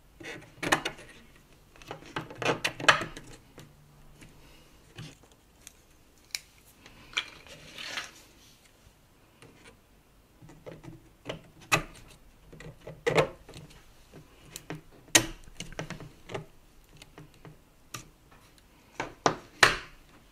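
Hard plastic parts of a 3D-printed PET-G reel rack being handled and pushed together: irregular clicks, knocks and short scraping rubs, with a few sharper knocks in clusters.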